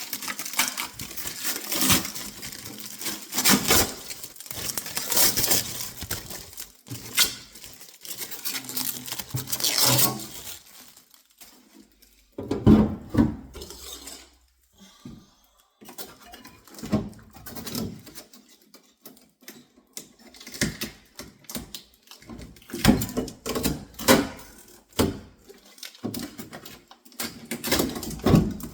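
Packing material rustling and crinkling for about the first ten seconds, then a string of separate knocks and clatters as hard parts of a new refrigerator are handled.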